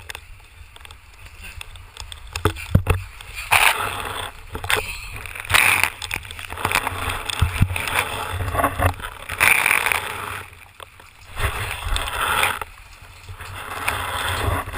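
A person plunging into a swimming pool: splashing, then muffled water sloshing and bubbling heard from under the water, coming in irregular surges with a few knocks.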